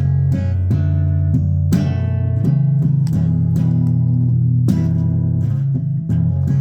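Guitar playing: single notes picked one after another over steady, held low notes.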